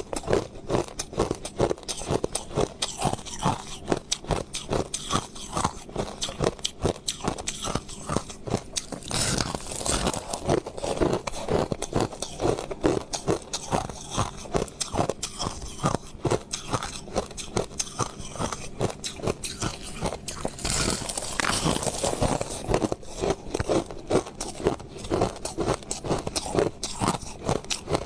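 Close-up crunching and chewing of crushed ice, a rapid run of crisp crunches as the ice is bitten and ground between the teeth.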